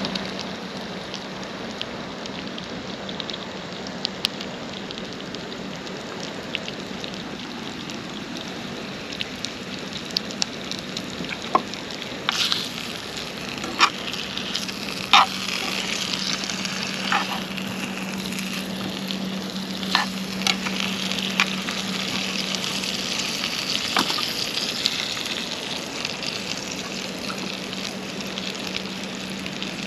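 Sausages sizzling steadily in a small frying pan on a gas-canister camping stove. A metal fork clinks against the pan a few times around the middle as the sausages are turned.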